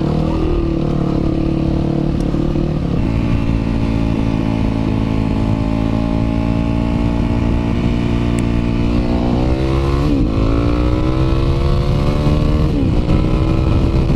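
Yamaha WR450F's single-cylinder four-stroke engine pulling under way, with wind noise. Its pitch climbs, drops sharply at a gear change about ten seconds in, then climbs again.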